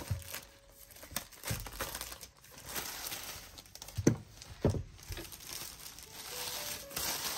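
Clear plastic wrap crinkling as it is peeled off a puzzle board, with two soft knocks about four seconds in and denser crinkling near the end as the wrap is gathered up.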